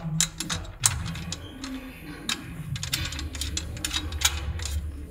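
Irregular metallic clicks and clacks from the steel frame parts of a gym machine being handled and bolted together, with a bolt being turned by hand.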